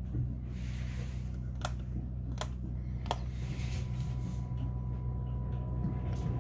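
Steady low hum of the yacht's Northern Lights diesel generator running. Three sharp clicks follow each other about two-thirds of a second apart as switches on the AC power panel are thrown to change over from shore power to the generator. A faint steady high tone comes in about halfway.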